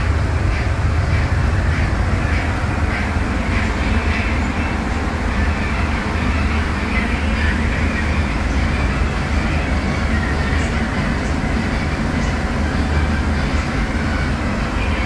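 Scania DC09 five-cylinder diesel of a Scania K250UB midibus running under way, heard inside the passenger cabin as a steady low drone mixed with road noise.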